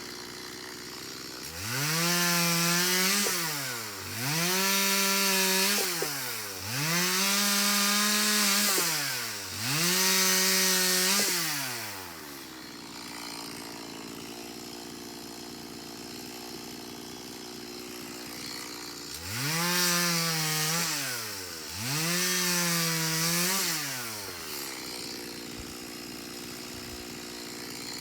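Two-stroke chainsaw bucking firewood: the engine revs up to full throttle for cuts of two to three seconds each and drops back to idle between them. There are four cuts in quick succession, a long stretch of idling, then two more cuts.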